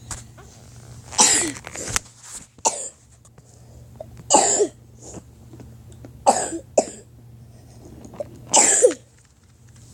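A person coughing over and over: about six short coughs, a second or two apart.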